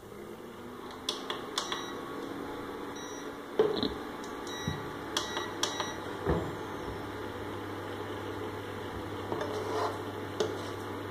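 Induction cooktop switched on: its cooling fan starts up with a rising hum and then runs steadily, with clicks and short beeps from the control buttons as the power is set, and a spatula stirring in the pan near the end.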